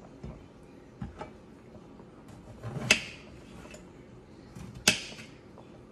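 Small knife slicing through eggplant on a plate, with two sharp clicks about two seconds apart as the blade reaches the plate, and a few fainter taps before them.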